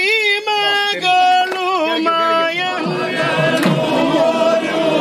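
Devotional singing: a voice holds long, wavering notes in a chant. From about three seconds in it gives way to a fuller group of voices singing together.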